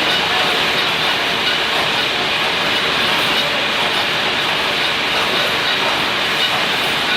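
Reinforcing-bar cage welding machine running, a loud, steady mechanical noise without pause.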